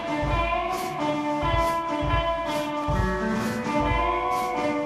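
Blues band playing an instrumental passage: hollow-body electric guitar, bass and a drum kit with cymbal hits keeping time, under long held lead notes.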